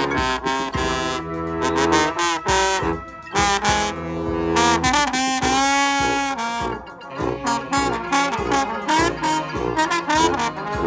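Brass band playing live, with trombones, trumpets and saxophones over a busy beat. About halfway through, one horn holds a long note with a wavering pitch.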